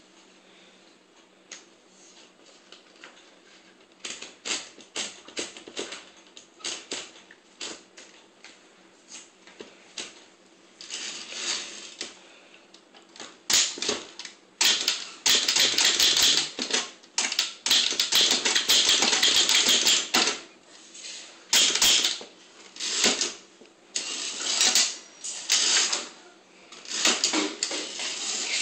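Brother Valiant manual portable typewriter being typed on: type bars striking, a few soft, widely spaced strokes at first, then quicker, louder runs of keystrokes with short pauses from about halfway through.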